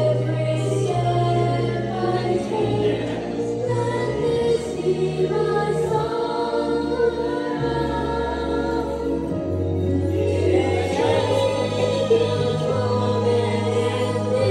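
Music with a group of voices singing, over a bass line that moves to a new held note every second or two.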